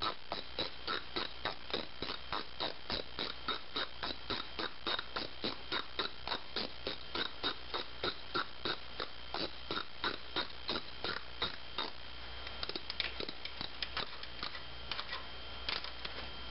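Socket ratchet clicking steadily, about three clicks a second, as the 10 mm bolt holding the coolant overflow tube is turned. The clicks become sparse and irregular near the end.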